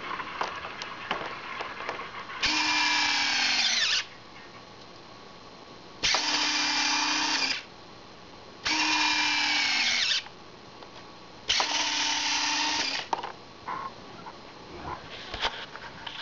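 Electric retractable landing gear of a ParkZone Bf109G model plane cycling up and down twice: four whirring motor runs, each about a second and a half, the pitch dropping as the gear reaches the end of its travel.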